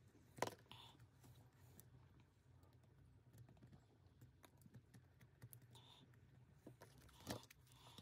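Near silence with faint small clicks and taps from hand tools being handled during soldering work on the motor's sensor wiring, with two sharper clicks, one about half a second in and one near the end.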